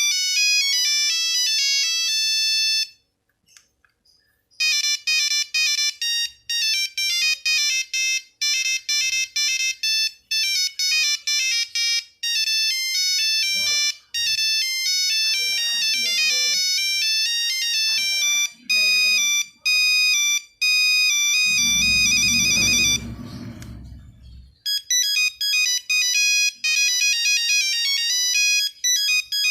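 Nokia 3310 monophonic ringtones playing: simple beeped melodies one note at a time, several different tunes in turn with short pauses between them. About two-thirds of the way through, a low buzz sounds for about three seconds under a rapid run of high beeps.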